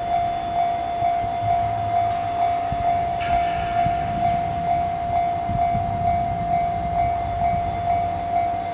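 Japanese level-crossing warning bell ringing, a single electronic tone repeated evenly without a break. Under it a freight train of oil tank wagons rolls past with a low rumble and knocking of wheels, with a brief higher squeal a little after three seconds.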